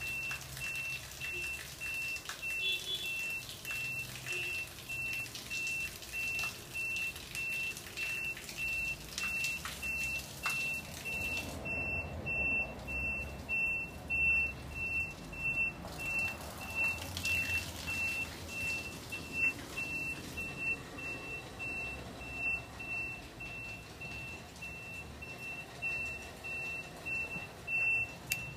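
An electronic beeper sounds a rapid run of short, high-pitched beeps all through, over a faint steady splash of water.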